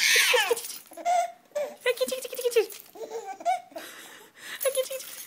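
A baby laughing in a string of short giggling bursts, loudest at the very start.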